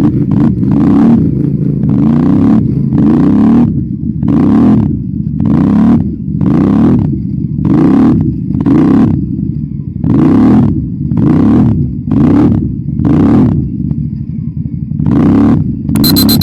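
ATV engine running hard, revving in regular surges about once a second.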